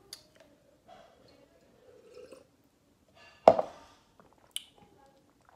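Faint swallowing sounds of someone drinking from a plastic cup, then a single loud knock about three and a half seconds in as the cup is set down, and a small click a second later.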